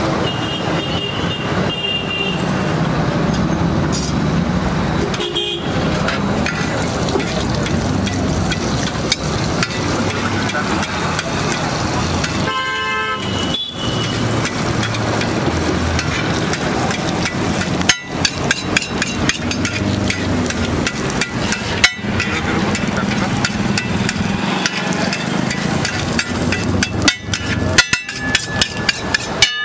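Steady street traffic noise with a vehicle horn honking briefly twice, most clearly about halfway through. Later come runs of rapid metallic clicks and taps from metal spatulas on an iron griddle.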